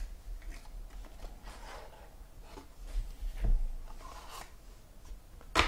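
Trading cards and their packaging being handled: soft rustling and sliding scrapes, with a sharper click just before the end.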